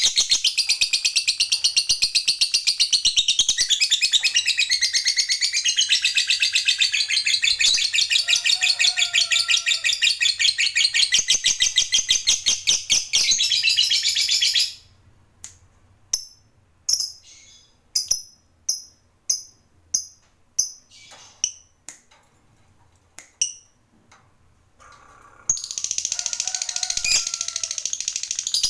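Lovebird giving its long 'ngekek' song: a very rapid, high-pitched chattering trill, the prized long chatter of a lovebird in full song. It runs unbroken for about fourteen seconds, breaks into separate short chirps about one or two a second, then starts the rapid chatter again near the end.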